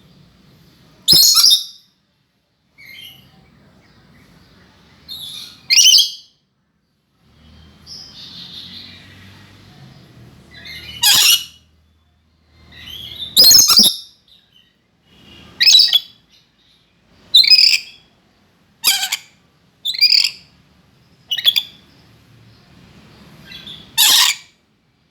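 A lory giving short, harsh, loud screeches, about ten of them, one every second or few seconds, with a few fainter calls in between.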